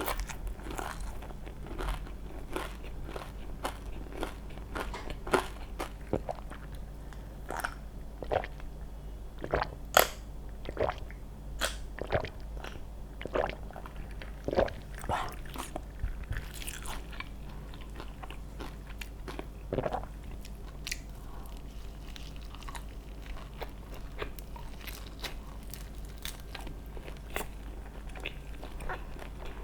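Close-miked eating: crisp bites and chewing of crunchy food, a run of sharp crunches, the loudest about ten seconds in, thinning to quieter chewing in the second half.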